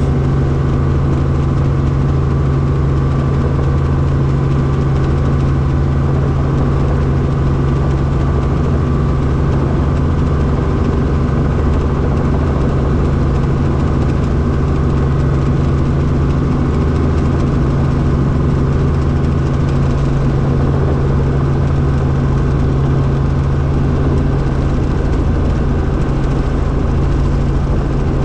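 Helicopter engine and rotor running on the ground, heard from inside the cabin: a loud, steady low hum with even overtones that does not change.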